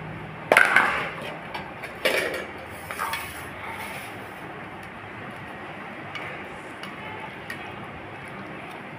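Steel dishes knocking on a tiled floor: two loud clatters about half a second and two seconds in, and a smaller one a second later, as a steel bowl of curry is set down beside the plate. Then a few faint clinks of a steel spoon scooping the chicken curry.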